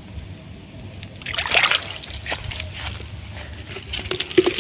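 Splashing and sloshing in shallow muddy paddy water as a hooked rice-field eel (Asian swamp eel) is pulled out on the line, loudest about a second in, followed by scattered small clicks and knocks near the end.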